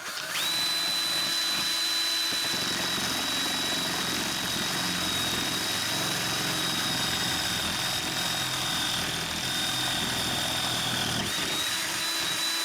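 Handheld electric drill running steadily at high speed, drilling out a bolt hole, with a constant high motor whine over the rough grind of the bit cutting. About eleven seconds in the motor dips briefly and the cutting noise thins, as the bit runs more freely.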